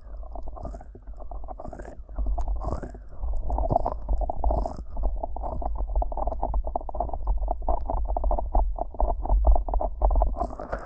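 Fingers massaging the ear of a 3Dio binaural microphone with thick Vaseline: sticky, squelching rubbing close to the mic, with a low rumble under it. The strokes get louder and come quickly and densely from about two seconds in.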